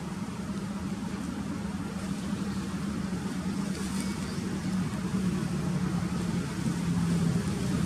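An engine running with a steady low hum that slowly grows louder.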